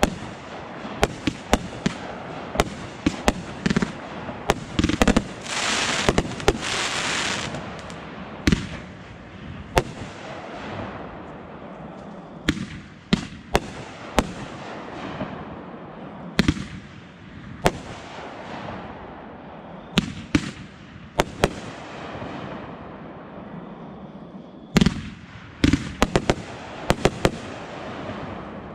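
Aerial fireworks display: a steady run of sharp bangs from shells bursting overhead, with about two seconds of dense hiss around six seconds in and a quick cluster of bangs near the end.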